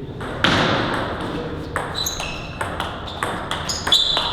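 Celluloid-style table tennis balls clicking off tables and bats: many quick, irregular hits, each with a short ringing ping. A burst of noise about half a second in fades away over about a second.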